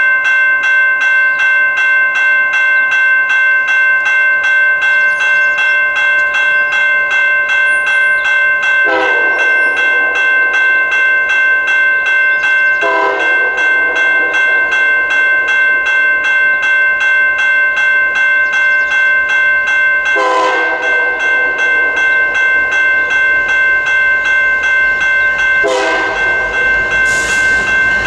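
A level-crossing warning bell rings steadily and rapidly while the approaching FP9A diesel locomotive's horn sounds four blasts, about a second each, the last near the end, as the train nears the crossing.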